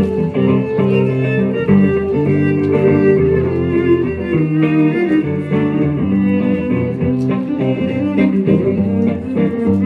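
A cello and a guitar playing a musette waltz together.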